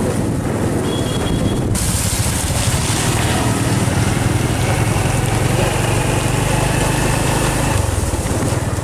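Small motorbike engine running steadily while riding, with a rushing hiss of wind and rain on the microphone that jumps up sharply about two seconds in.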